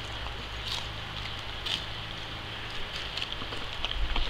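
Dog chewing a piece of ice cream cone, a few short crisp crunches over a low steady hum.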